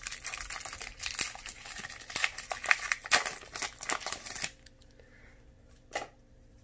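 Foil wrapper of a Pokémon trading card booster pack crinkling and tearing as it is pulled open, for about four and a half seconds; then one short click near the end.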